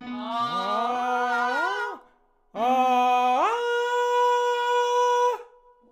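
Sung vocal exercise of two octave jumps from chest voice up into head voice. Each is a held low note that leaps up an octave: the first is short and breaks off after the jump; the second holds the top note steadily for about two seconds before stopping.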